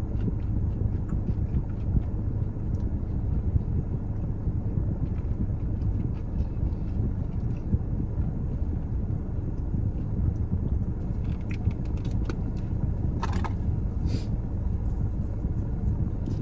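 Steady low rumble like a car interior with the engine running. A few short crunchy clicks of chewing come through about eleven to fourteen seconds in.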